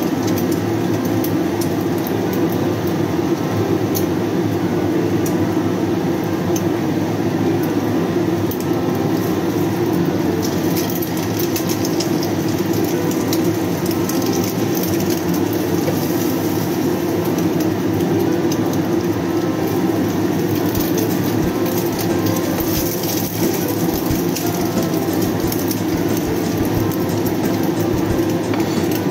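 Kitchen range hood exhaust fan running steadily, with oil crackling and spitting as an egg fries in a wok, and a wooden spatula now and then scraping the pan.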